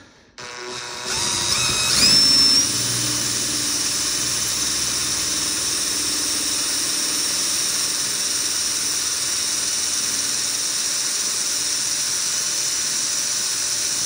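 Electric drill spinning up about half a second in, its whine rising to full speed by about two seconds, then running steadily as the bit bores a tap hole for 6-32 threads in an aluminium bracket.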